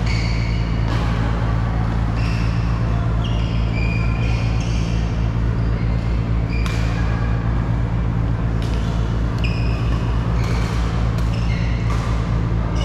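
Sports-hall sound of badminton play: a loud steady low hum, with short high squeaks of court shoes on the floor and a few sharp racket-on-shuttlecock hits.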